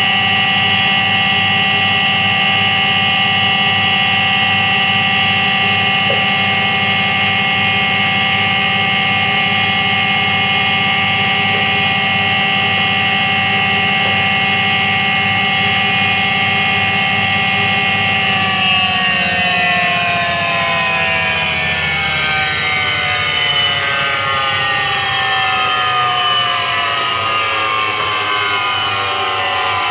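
Washing machine drum spinning fast with a loud, steady hum from its drum bearing, the sound of a worn bearing. A little over halfway through, the hum starts falling steadily in pitch as the drum slows down.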